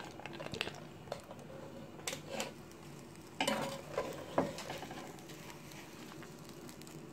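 Fried rice being stirred in a pot as cashews are added, over a faint sizzle. Scattered soft scrapes and clicks, the strongest a little after three seconds in and again about four seconds in.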